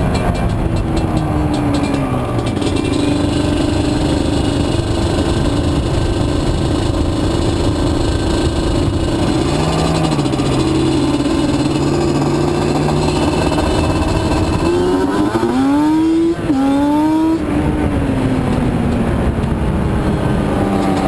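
Yamaha Banshee's twin-cylinder two-stroke engine running under way on a Trinity 2-1 single-carburettor setup that is being tuned. It eases off at the start, holds a steady speed, then revs up sharply twice about three-quarters through with a short dip between, and falls away again.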